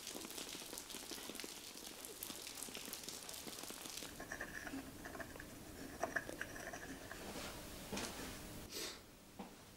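Rain pattering steadily on umbrellas for about four seconds. Then a quiet room with a few faint clinks of a spoon in a cup and a short scrape near the end.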